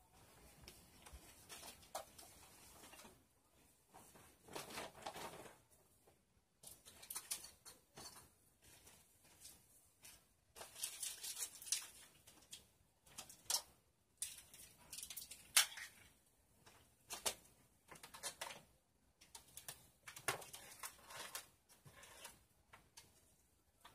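Small household items being picked up, sorted and set down by hand: faint, irregular rustling, clicking and clattering in short bursts, including items taken out of a plastic basket and placed on shelves.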